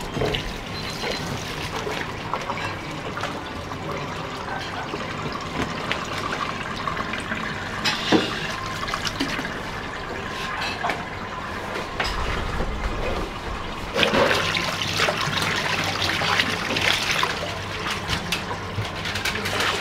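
Tap water running into a stainless-steel sink while boiled udon noodles are rinsed and rubbed by hand in it, with splashing; louder about two-thirds of the way in.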